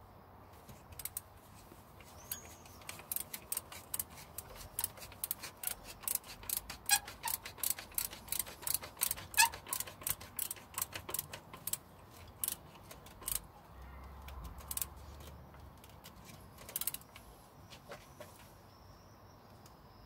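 Hose clamp on a coolant hose at the water pump being tightened with a screwdriver. It gives a quick run of sharp clicks, about three or four a second, for roughly twelve seconds, then a couple more a few seconds later.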